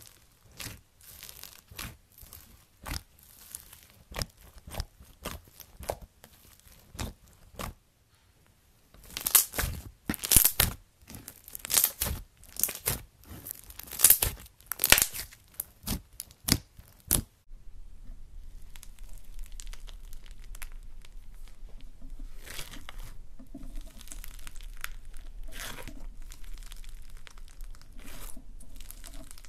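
Foam-bead slime (floam) squeezed and pressed by hand, giving crunchy crackling pops with each squeeze, louder for a stretch in the middle. After a cut about two-thirds of the way in, denser crackling over a steady low hum.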